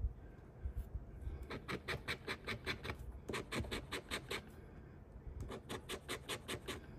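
A large metal coin scratching the coating off a scratch-off lottery ticket in quick strokes, about five or six a second, in three short runs.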